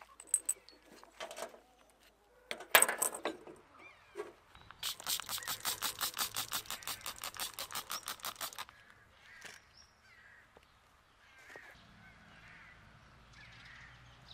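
A sharp clatter about three seconds in, then a trigger spray bottle pumped rapidly, about seven squirts a second for some four seconds, spraying foaming cleaner onto a stainless steel kettle.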